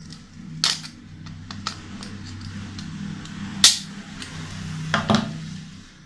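Plastic clicks and snaps as the red plastic housing of a Whirlpool washing-machine door lock switch is pried up off its base by hand. There are three sharp snaps, the loudest about halfway through, among lighter ticks.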